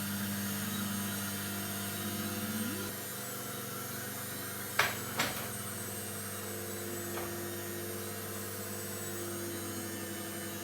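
Electric kitchen blender motor running with a steady hum as it blends dried fruit; the hum drops slightly about three seconds in. Two sharp knocks come near the middle.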